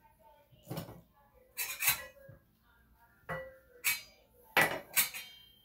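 Small stainless steel toy pots and a lid clanking as they are handled: about six separate metallic clinks and clatters, each with a short ring.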